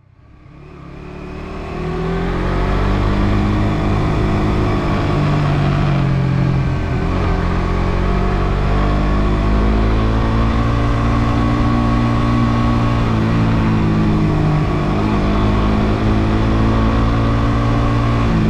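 Suzuki GSX-R150's 147cc single-cylinder engine running while riding, its note rising and falling with the revs. The sound fades in over the first two seconds.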